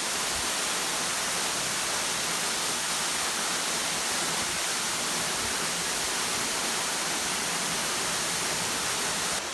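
A waterfall rushing steadily, an even hiss of falling water with no breaks.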